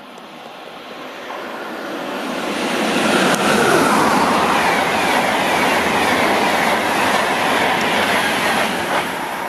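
An EuroCity passenger train hauled by a Deutsche Bahn class 101 electric locomotive passes at speed. The rumble builds over the first three seconds, and a falling whine comes as the locomotive goes by. Then the coaches follow with a steady rush of wheels on the rails.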